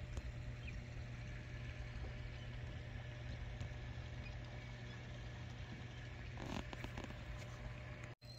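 A steady low hum under an even rushing noise, with a short patch of clicks about six and a half seconds in; the sound drops out for an instant just before the end.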